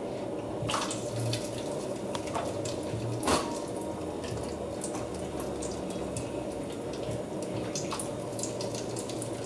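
Whole garlic cloves frying in heating oil in a wok: scattered small crackles and pops over a steady low hiss, with two sharper clicks, about a second in and about three seconds in.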